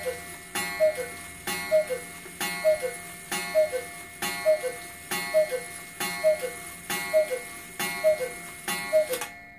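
Carved oak American Eagle cuckoo clock of the 1890s with a solid brass GK movement striking twelve. About once a second comes a ringing strike and then the falling two-note cuckoo call from its bellows, which have new leather and paper. The calls stop near the end.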